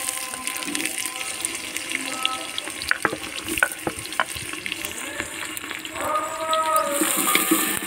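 Chopped onion sizzling and crackling as it fries in hot oil in an aluminium pot, stirred with a wooden ladle, with a few sharper pops and clicks. A drawn-out pitched sound joins in the background about six seconds in.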